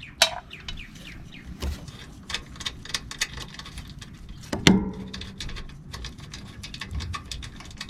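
Light metallic clicks and taps of a box wrench working the ABS wire bracket bolts on a truck's front suspension, with one louder ringing metal clank about halfway through.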